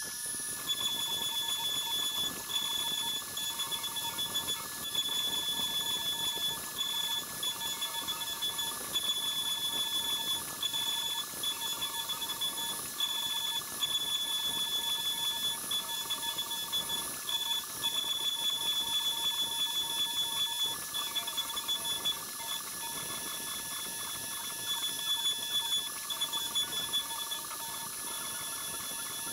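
CNC router spindle running with a steady high whine while a V-bit carves inlay pockets into a wooden cutting board. The cutting sound comes and goes in short stretches as the bit moves into and out of the wood.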